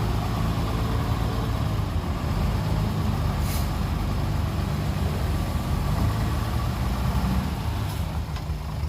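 Heavy diesel engines running steadily at a low, even pitch, with a short hiss about three and a half seconds in.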